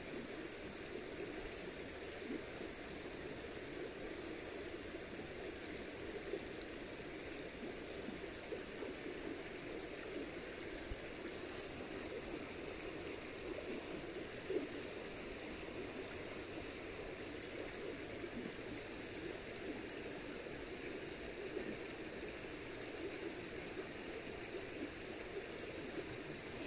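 Steady rush of flowing river water, even throughout, with a couple of faint ticks.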